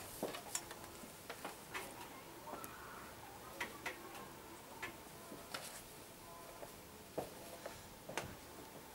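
Faint, irregular clicks and taps of pens and small objects on school desks as pupils write, over a quiet room hum.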